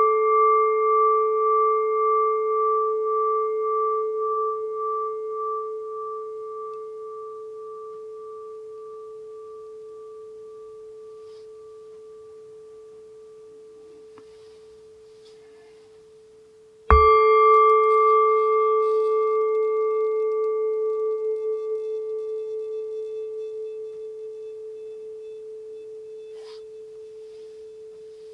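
Singing bowl ringing after being struck: a low steady tone with higher overtones, one of them wavering, slowly fading. It is struck again about two-thirds of the way through, and the ring swells back up and begins to fade again.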